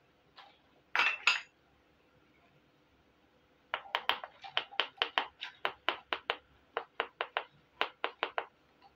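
Miniature plastic toy kitchenware clicking and clinking as it is handled: two knocks about a second in, then a quick run of about twenty sharp taps, some four a second, for nearly five seconds.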